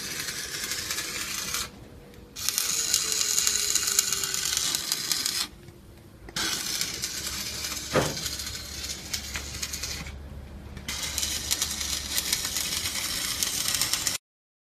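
Stick-welding arc crackling and sizzling in runs of a few seconds, with three short breaks between runs. It cuts off suddenly near the end.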